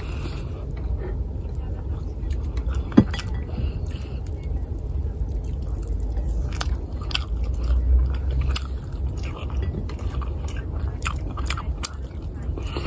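Close-miked chewing and mouth sounds of a person eating fried rice with ham and egg, with many small wet clicks, and a single sharp knock about three seconds in.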